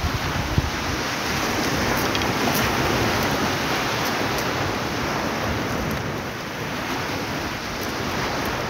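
Steady rush of surf breaking on the shore, swelling slightly in the middle.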